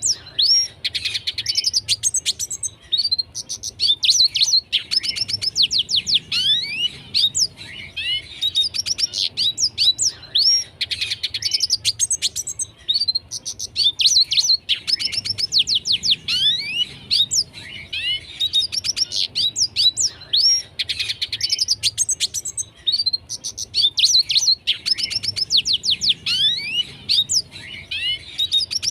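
Red siskin singing a long, fast twittering song of chirps, trills and quick downward-sweeping notes, in phrases of a few seconds broken by short pauses.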